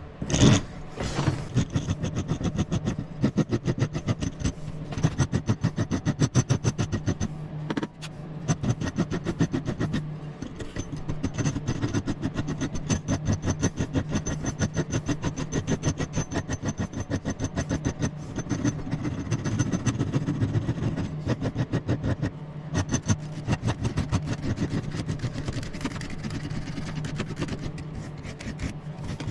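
An electric power tool running steadily with a low hum and a high whine, and a rapid rhythmic rasping as it works the piece in a rough first pass.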